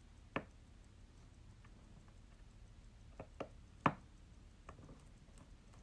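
Small sharp clicks of metal watchmaker's tools against a mechanical watch movement: one about half a second in, then a quick pair and a louder click a little after three seconds.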